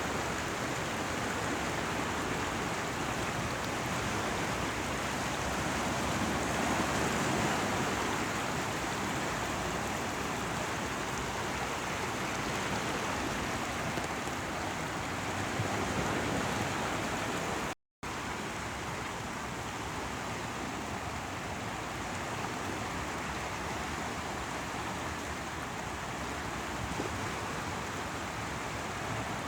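Steady rush of running water and breaking waves, with slow swells in level. The sound cuts out for a split second about 18 seconds in, then carries on slightly duller.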